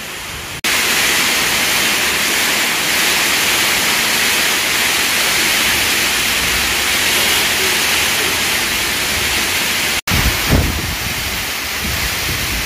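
Heavy downpour: a loud, steady hiss of rain. After a short break about ten seconds in, gusts of wind buffet the microphone with a low, uneven rumble.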